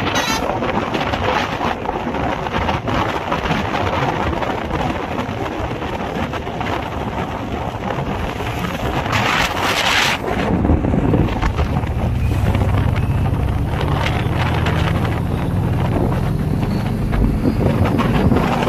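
Wind buffeting the microphone and road noise from a moving vehicle. About ten seconds in, a car rushes past close by, and after it an engine note climbs steadily in pitch as it accelerates.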